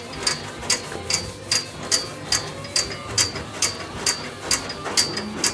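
Steady, even ticking, about two to three sharp clicks a second.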